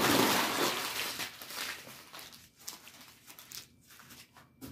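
Paper or plastic food wrapper being crumpled and handled close to the microphone, rustling loudest in the first second or so, then trailing off into scattered crinkles and clicks.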